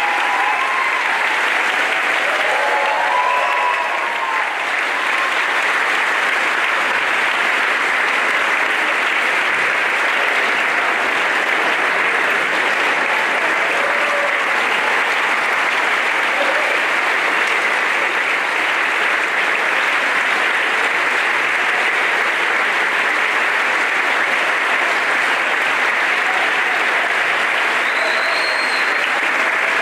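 Sustained applause from an audience and choir clapping together, dense and steady throughout, with a few voices calling out in the first few seconds.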